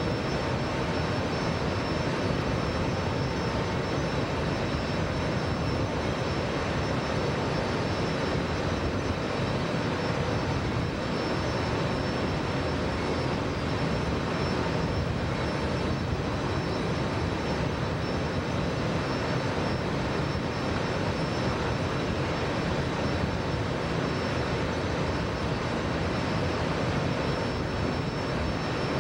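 A steady mechanical drone with a rushing noise under it, even in level throughout, with a few faint steady tones in it.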